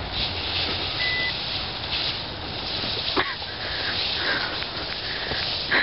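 Spruce branches rustling and brushing against the camera as a person pushes through the trees, with a few sharp snaps and one brief high beep about a second in.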